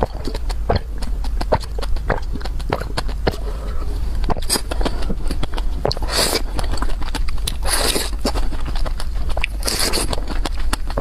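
Close-miked eating: rapid wet chewing and mouth clicks. From about four seconds in, a louder noisy burst comes about every two seconds.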